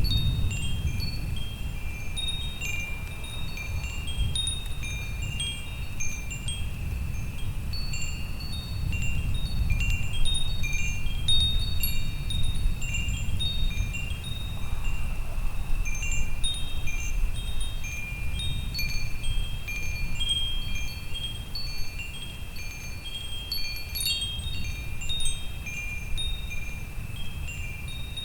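Wind chimes ringing at random, several high notes striking and overlapping, over a low steady rumble of a thunderstorm that swells and fades.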